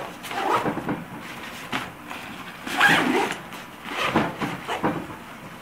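Nylon avalanche backpack being handled: its outer pocket flap is folded shut, the fabric rustling and scraping in several short, uneven bursts.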